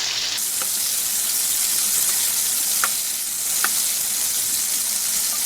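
Samosa-sheet chicken rolls sizzling as they shallow-fry in hot oil over a low flame: a steady hiss with three faint ticks.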